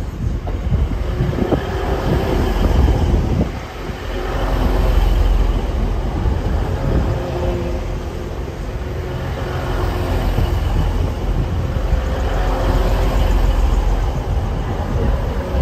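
A train moving along the line close by: a loud continuous rumble with a steady hum over it, swelling and easing, with a few knocks in the first few seconds.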